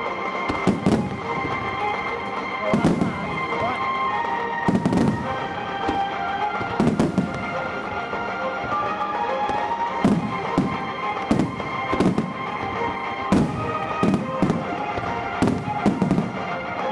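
Aerial fireworks shells bursting in repeated booms, about a dozen, coming closer together in the second half, over music playing throughout.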